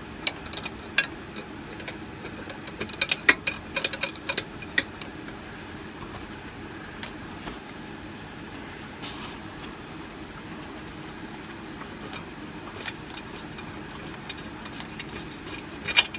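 Rapid metallic clicking of a ratcheting gear wrench turning out an airbag mount bolt, in a cluster over the first five seconds, scattered in the middle, and again near the end. Under it runs a steady low hum.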